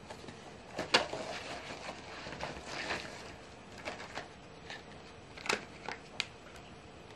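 Plastic packaging being handled and unwrapped: intermittent crinkling and rustling with a few sharper clicks, the sharpest about a second in and a cluster around five and a half to six seconds.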